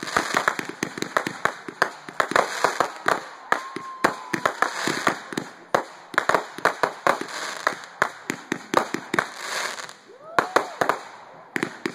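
Aerial fireworks going off in a rapid barrage: many sharp bangs and crackles, several a second, from shells bursting overhead.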